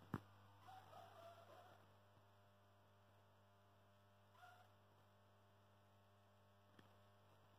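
Tesla SHLP 210 W high-pressure sodium lamp running on magnetic ballasts, giving a low, steady mains hum. A sharp click comes at the very start, and faint short pitched calls are heard about a second in and again midway.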